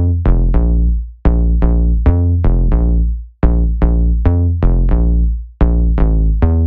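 Electronic music track made in the Music Maker Jam app: a drum-machine beat with quick, fading synth stabs over deep bass. The phrase breaks off briefly about every two seconds.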